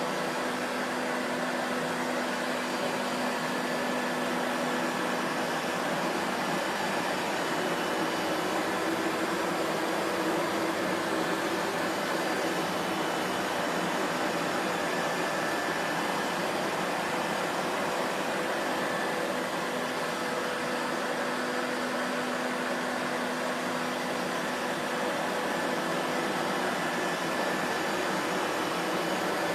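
Vacuum cleaner running steadily: an even rush of air with a faint motor hum whose tones fade in and out every several seconds.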